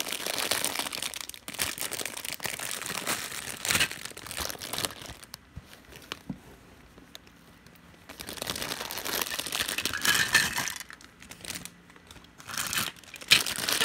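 Clear plastic bag of Duplo bricks crinkling as it is handled, in spells with a quiet pause about halfway through and a louder spell near the end.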